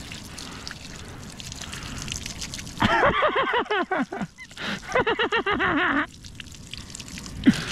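Water trickling and dripping. About three seconds in, a louder run of quick warbling, pitched sounds lasts for about three seconds, then the trickle carries on.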